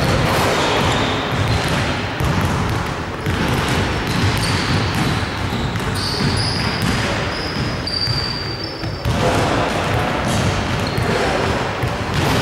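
Indoor basketball game on a hardwood court: a basketball bouncing, short high squeaks now and then, and players' voices echoing in the hall.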